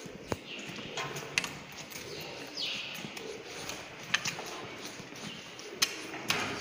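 Cattle barn ambience: scattered sharp knocks and clanks around the cows at the metal feed barrier, with short high bird chirps now and then.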